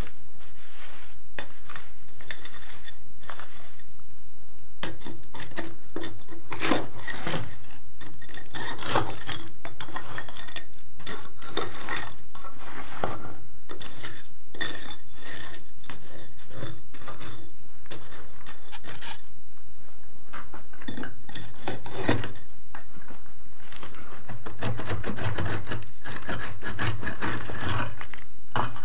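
A hand tool scraping and raking through broken concrete rubble and sand, with irregular gritty scrapes and clinks of stone and metal, busiest in a few spells.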